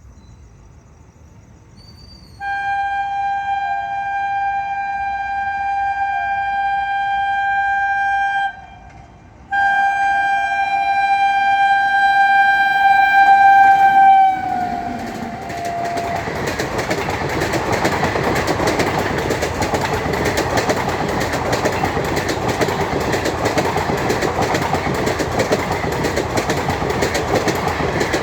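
WAP7 electric locomotive's horn sounding two long blasts, the second dropping in pitch near its end as the locomotive passes. After that comes the steady rhythmic clatter of passing ICF passenger coaches' wheels on the rails.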